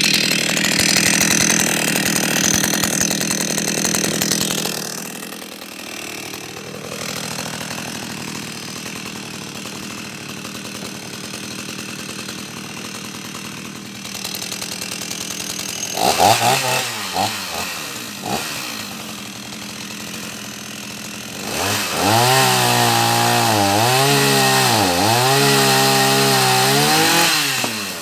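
Hyundai X460 two-stroke chainsaw running. It runs loud for the first few seconds, settles to idle, and is blipped a few times about sixteen seconds in. Near the end it is held at full throttle for about six seconds, cutting wood, its pitch dipping repeatedly as the chain bites, then drops back to idle.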